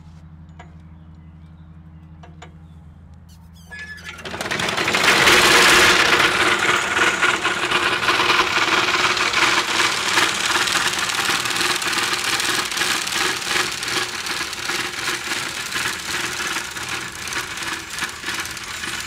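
Horse-drawn Arvika Viking sickle-bar mower cutting grass: the reciprocating knife sets in about four seconds in with a loud, fast, dense clatter and a squealing whine, running steadily until it fades near the end. Before it, only a low steady hum.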